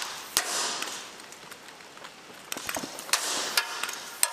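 A few scattered sharp cracks of rifle fire, several of them trailing off in a rushing echo.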